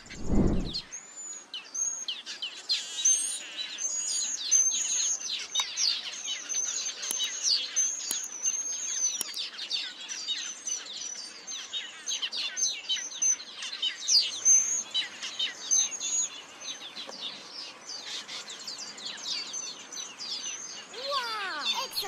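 Taveta weaver chattering: a dense, continuous stream of fast, high-pitched notes mixed with short arching whistles.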